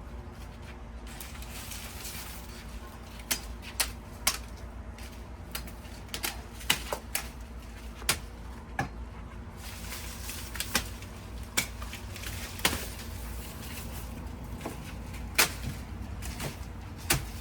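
Corn being handled: dry leafy husks rustling, with irregular sharp snaps and cracks, over a steady low hum.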